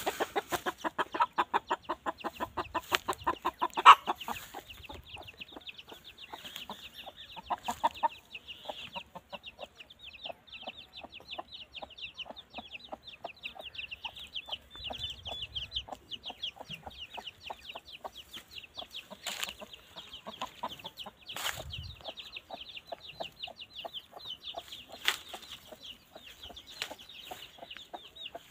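A hen clucking in a rapid, steady run, loud for the first eight seconds or so and fainter after, while her chicks keep up constant high peeping throughout. A few sharp knocks come in the second half.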